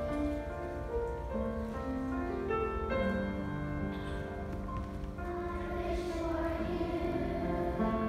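Instrumental introduction to a children's choir song, with steady held notes; the young singers' voices come in near the end.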